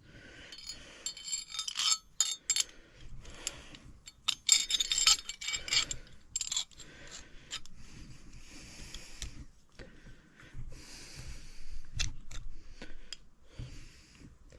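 Small steel parts clinking and tapping against each other with brief metallic ringing as they are handled, with softer stretches of scraping and rubbing between.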